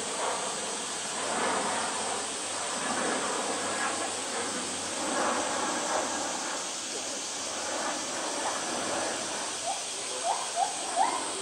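Indistinct chatter of a crowd of visitors over a steady high hiss. Near the end come several short rising chirps.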